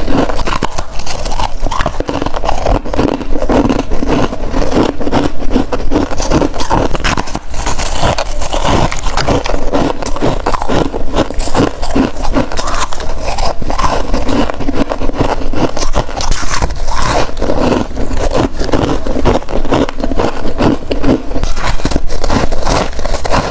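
Close-miked biting and chewing of crispy sheets of freezer frost: a loud, dense, unbroken run of crackling crunches.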